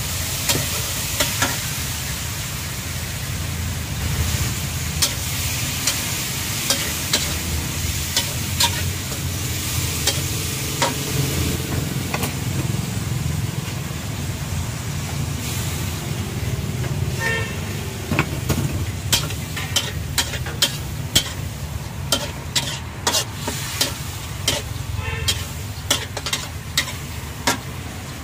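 Metal spatula scraping and knocking against a steel wok as meatballs, sausage and greens are stir-fried, over a steady sizzle. The clanks come quickly one after another, denser in the second half, with a low steady rumble underneath.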